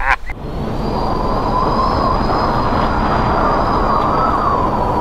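A steady rushing, rumbling drone with a thin high whine over it, rising a little in loudness. It starts suddenly a moment in, with the cut to the bush shot, and sounds like a horror-film sound-design drone.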